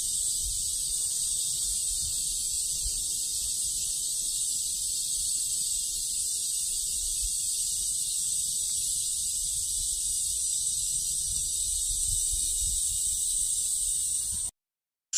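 Cicadas singing: a steady, unbroken high-pitched buzz that cuts off abruptly near the end.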